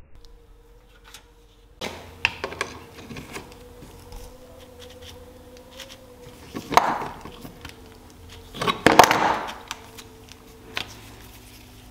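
Small metal clicks and knocks as slip-joint pliers grip and work the rusted pivot of an old hand-forged drawing compass, with two louder grating scrapes, one shorter about seven seconds in and a longer one around nine seconds. A faint steady hum runs underneath.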